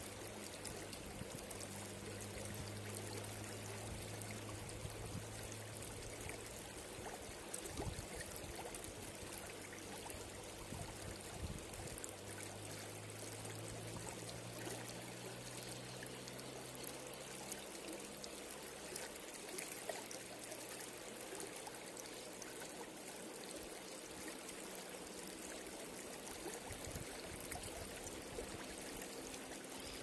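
Shallow mountain river flowing over rocks: a steady, even rush of water with small splashes and trickles.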